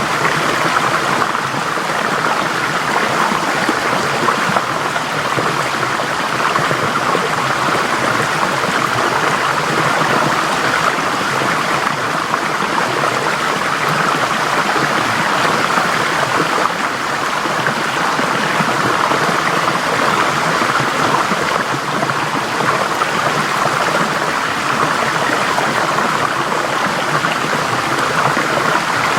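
Forest stream flowing over rocks, a steady rushing and babbling of water.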